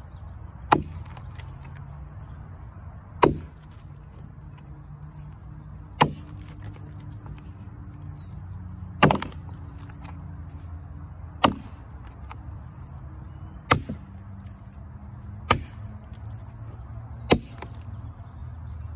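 A 5.5 lb Kentucky pattern axe chopping into a cottonwood log: eight sharp strikes, one every two to three seconds.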